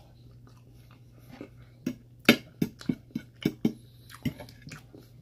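Close-up eating sounds of someone eating chicken stir fry with a fork: from about two seconds in, a run of sharp clicks and smacks, about ten in under three seconds. A faint steady low hum runs underneath.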